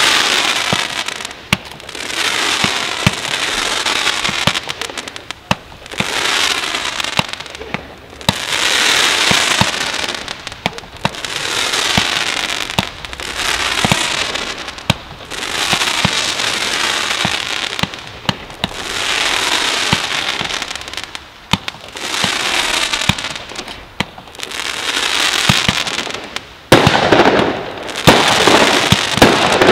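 Fireworks battery firing shot after shot. About every two seconds a rush of hissing noise swells and fades, with sharp launch pops. It gets louder and denser in the last few seconds.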